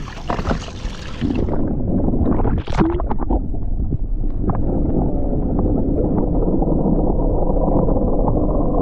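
Water splashing at the sea surface, then, about a second and a half in, the sound turns into a muffled, steady underwater rumble and sloshing as the microphone goes under, with a few sharp knocks of moving water shortly after.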